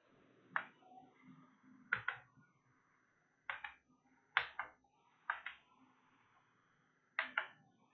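Chalk writing on a chalkboard: short clicks and scrapes as the chalk stick taps and drags across the board, in small groups about every second or so.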